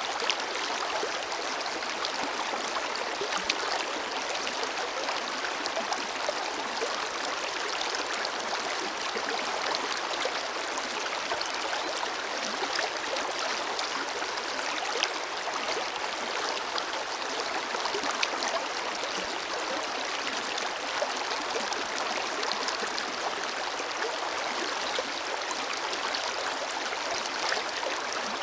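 Forest river flowing steadily: an even rush of water, light in the low end, with small splashes and droplet ticks scattered throughout.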